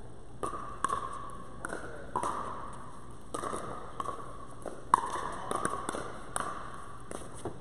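Pickleball rally: paddles hitting the hollow plastic ball back and forth, about a dozen sharp pops at uneven intervals, each with a short ringing tail, the loudest about five seconds in.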